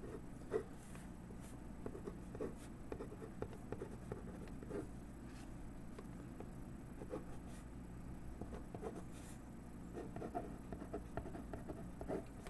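Ballpoint pen writing on paper: faint, irregular short scratches and taps of the pen strokes, over a steady low hum.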